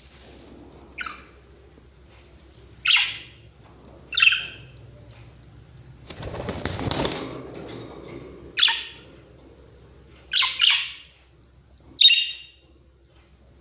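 Parrots giving short, sharp chirps and squawks, about seven in all, spaced a second or more apart, with two calls close together near the end. A noisy rustle lasting about a second and a half comes near the middle.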